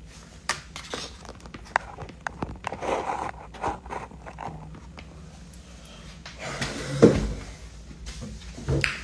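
Hands handling small objects close to a phone's microphone: scattered clicks, rustles and light knocks, with a louder bump about seven seconds in.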